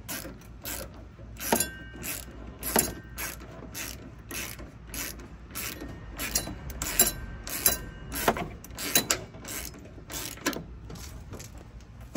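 Hand ratchet wrench clicking in short strokes, about two clicks a second, some with a brief metallic ring, as the front bumper bolts are backed out.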